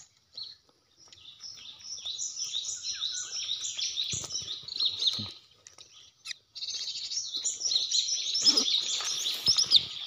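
Rapid, high chirping of cinereous tit (gelatik batu) calls, from an original call recording played as a lure to draw the birds in. It breaks off briefly about five seconds in, then resumes.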